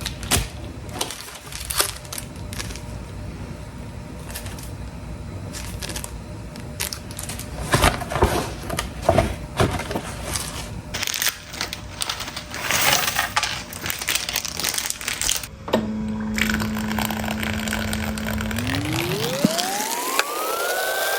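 Close-miked mukbang eating sounds: chewing and crunching as a run of short, sharp clicks. About three-quarters of the way through, a steady electronic tone comes in, then sweeps up in pitch and back down near the end, an added sound effect.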